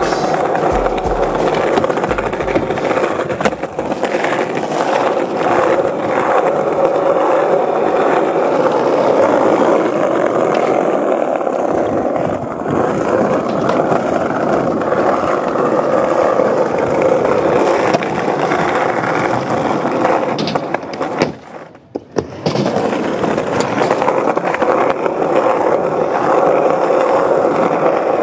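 Skateboard wheels rolling over stone paving: a steady rolling noise that drops away for about a second roughly three-quarters of the way through, then resumes.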